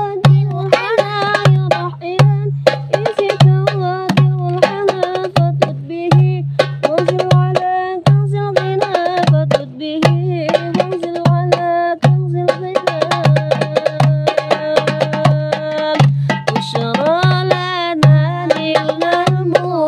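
Darbuka and hand drums played in a quick, busy rhythm under a sung sholawat melody.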